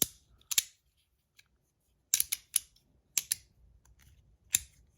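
Flat Verk magnetic slider fidget being snapped back and forth: a series of crisp clicks, several in quick pairs, as the slider hits its magnets at each end.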